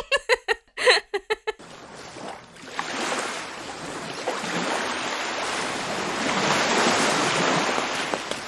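A quick run of short blips for about a second and a half, then a steady rushing hiss like surf or wind that swells slightly toward the middle.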